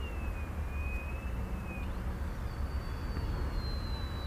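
Small electric motor and propeller of an XK A600 DHC-2 Beaver mini RC plane whining in flight. The thin high whine sinks in pitch, jumps higher about two seconds in, then slowly sinks again, over a low rumble of wind on the microphone.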